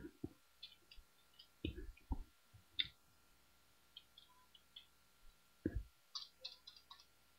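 Faint, irregular keystrokes on a computer keyboard, with a few heavier low knocks among the lighter clicks.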